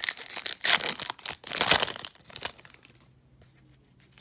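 Trading-card pack wrapper crinkling and tearing in a run of crackly bursts for about two and a half seconds, loudest just before the two-second mark, then it goes quiet.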